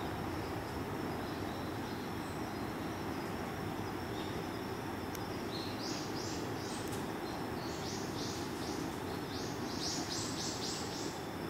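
Forest ambience: a steady low hiss, and from about halfway in, runs of short high chirps repeated about three times a second, from a calling bird or insect.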